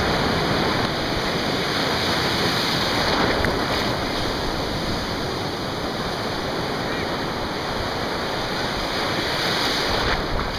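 Ocean waves breaking and whitewater washing through the shallows: a steady rush of surf noise, swelling a little near the end.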